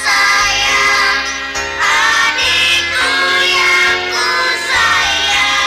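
Background music: a song with a high sung melody over a bass line.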